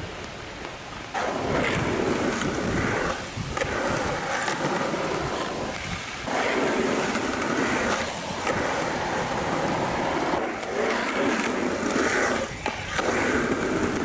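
Skateboard wheels rolling on concrete in several stretches of one to two seconds, rumbling across the flat and up a quarter pipe, with short breaks and a few sharp knocks between them as the board rocks to fakie on the ramp.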